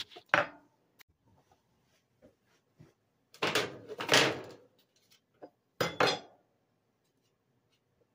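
Handling knocks and scrapes as the tipped-over camera is picked up and set back upright on the table, loudest about three and a half seconds in. This is followed by two sharp clatters about two seconds later.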